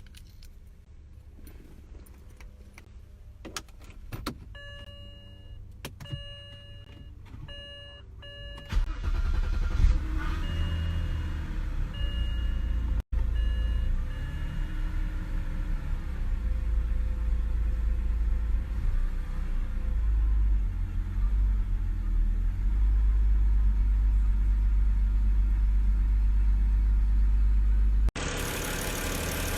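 Clicks and a series of dashboard warning chimes as the ignition is switched on, then the 2007 BMW 325i's N52 inline-six cranks and starts about nine seconds in and settles into a steady idle. Its misfires have been fixed and it is running smooth. The sound changes abruptly near the end.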